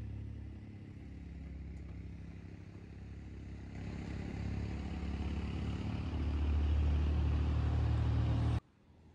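A motor vehicle engine running nearby, a steady low drone that grows louder about halfway through and then cuts off suddenly near the end.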